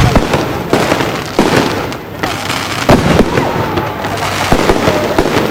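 Fireworks display going off: a rapid, irregular string of loud bangs and crackles.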